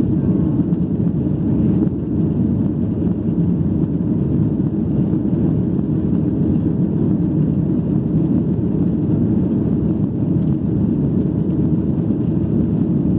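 Steady low rumble of a Ryanair Boeing 737's jet engines and the airflow around it, heard inside the passenger cabin as the plane climbs after takeoff.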